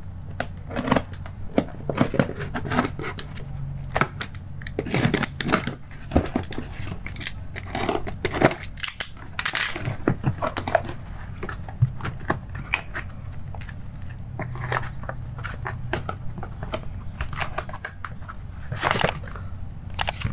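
Cardboard parcel being opened by hand: a utility knife slitting the packing tape, then tape and cardboard flaps crackling and scraping as they are torn and folded back, in irregular bursts. Paper rustles near the end as the contents are handled.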